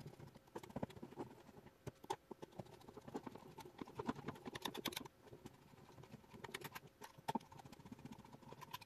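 Screwdriver driving M3 countersunk bolts straight into a 3D-printed plastic frame: faint, irregular small clicks and scrapes, with several quick runs of clicks.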